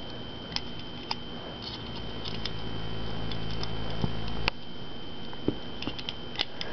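Small metal clicks and handling noise from a Leatherman Surge multitool being worked in the hands, with one sharp snap about four and a half seconds in.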